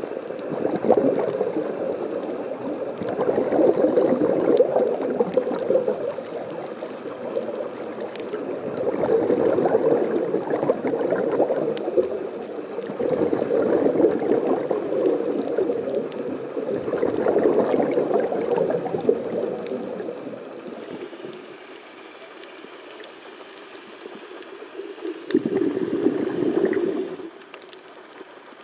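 Scuba diver's exhaled bubbles rushing out of the regulator, heard underwater through the camera's housing, in surges of two to three seconds about every four to five seconds. A longer lull comes near the end before one more burst of bubbles.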